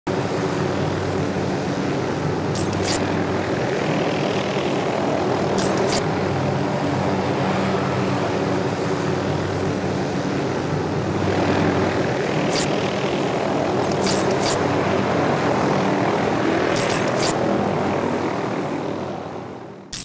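Steady aircraft engine drone under rushing wind, with a few short high clicks scattered through; it cuts off abruptly at the end.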